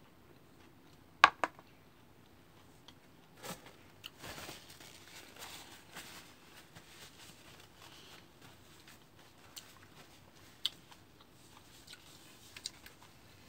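Close mouth sounds of a person chewing soft fresh fruit, with wet clicks of the lips and mouth. The loudest is a pair of sharp clicks about a second in, and a stretch of softer rustling follows around the middle.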